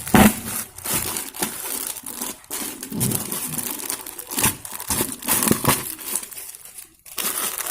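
Parcel packaging crinkling and rustling as it is pulled open by hand, with the packing tape still stuck to it tearing and scraping in short, irregular crackles. It goes briefly quiet about seven seconds in.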